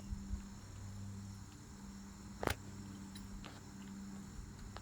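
A sharp plastic click about halfway through, followed by a couple of faint ticks: the e-bike headlight's wire connector being pushed together. Under it runs a steady high-pitched drone and a low hum.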